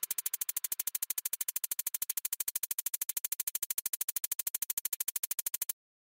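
Rapid, even electronic pulsing, about thirteen short pulses a second, with most of its energy in the highs. It cuts off suddenly near the end.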